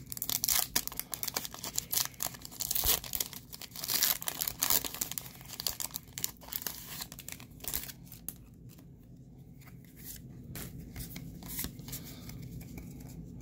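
Foil wrapper of a Pokémon card booster pack being torn open by hand, crinkling and crackling loudly for the first few seconds. After that come quieter rustles and light clicks as the cards are drawn out and handled.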